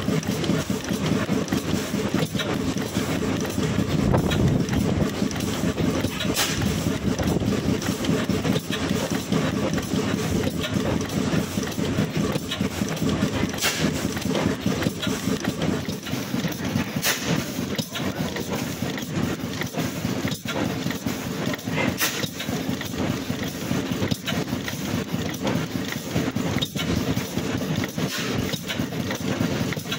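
Blackstone oil engine running: a steady mechanical clatter with a sharp click every few seconds.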